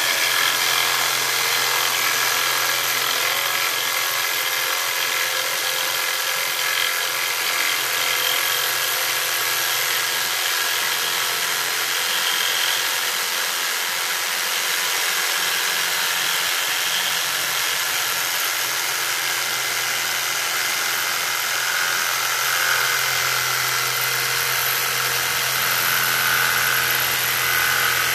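Hyper Tough corded jigsaw running steadily, its blade cutting along a wooden board.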